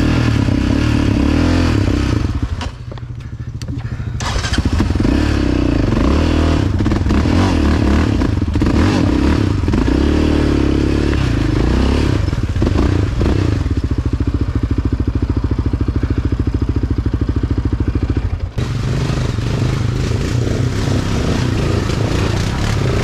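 Yamaha Raptor 700R's single-cylinder four-stroke engine running as the quad rides through mud, dropping off briefly about three seconds in and then picking back up. About eighteen seconds in, the sound changes abruptly to other ATV engines running.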